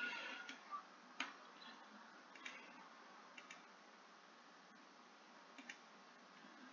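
Several faint computer mouse clicks at irregular intervals over near-silent room tone, as waypoints are clicked onto a digital map.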